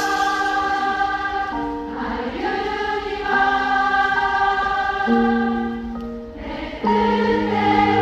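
Concert audience singing along in chorus to a live pop ballad, many voices holding sustained chords over the band. A bass line comes in and the music grows louder near the end.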